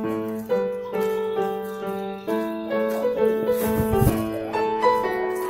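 Background music: a piano melody of steady held notes, with a brief low rumble about four seconds in.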